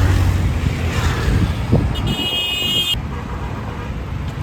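A Maruti Swift driving on new tyres, a steady low rumble of engine and road noise. A brief high-pitched toot sounds about two seconds in and lasts about a second.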